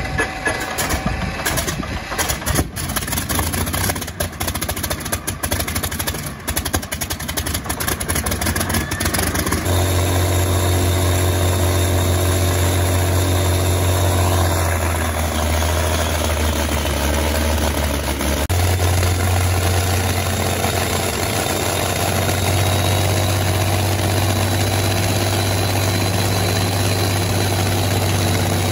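Daimler-Benz DB 605 inverted V12 aero engine on a test stand starting up: for about ten seconds it fires raggedly and unevenly, then it catches and settles into a steady idle with the propeller turning. About two-thirds of the way through, the note shifts slightly and runs on steadily.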